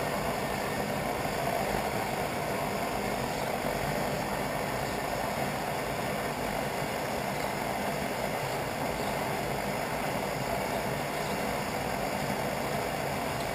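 Pressure stove burner running under a pan of melting wax: a steady, unbroken rushing sound at an even level.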